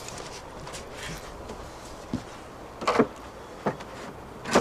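Wooden knocks as a cedar top plate is set down and worked into place on top of the sauna's cedar wall panels: about four separate knocks, starting about two seconds in, one of them a quick double.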